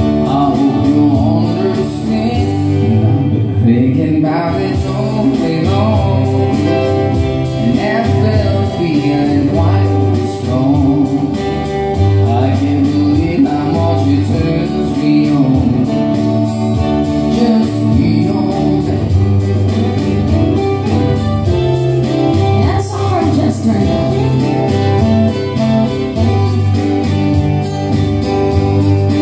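Live amplified band music: a singer with guitar accompaniment over a steady bass line, played through PA speakers.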